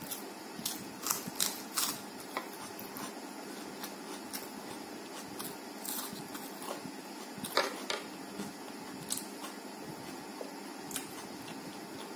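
Crisp crunches and mouth clicks of raw onion and a fresh green chilli being bitten and chewed: a cluster of sharp crunches about a second in, another around seven to eight seconds in, and single clicks after that, over a steady low hiss.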